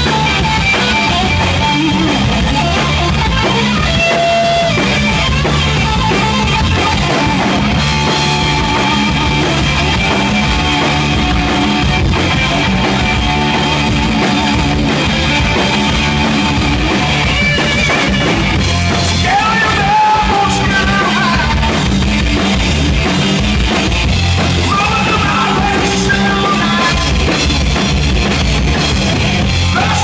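Rock band playing live and loud, with electric guitar over a steady drum kit and bass, and sung passages at times.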